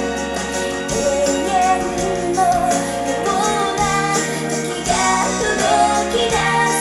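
Recorded song playing from a 16 cm Inoue full-range loudspeaker and picked up through the air: a female vocal melody over sustained instrumental chords, bass and bright bell-like percussion.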